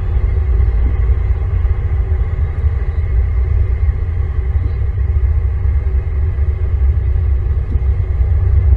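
Steady, loud low rumble with a faint constant hum above it.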